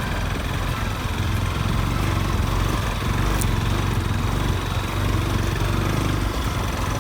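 Motor vehicle engine running steadily, a continuous low hum.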